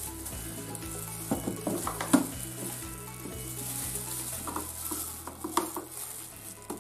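Light clicks and knocks of a plastic milk bottle being handled and its screw cap twisted off, over a steady hiss.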